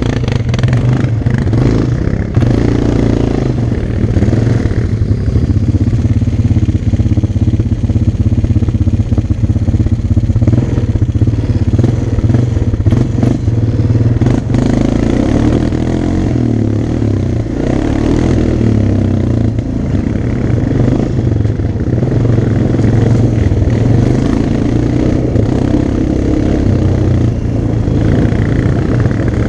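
Honda Recon ATV's single-cylinder four-stroke engine running steadily at trail speed, its drone rising and easing a little with the throttle.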